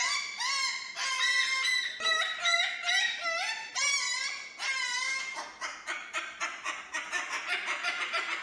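Cockatoo calling again and again, pitched calls that bend up and down, breaking into quick repeated notes about halfway through.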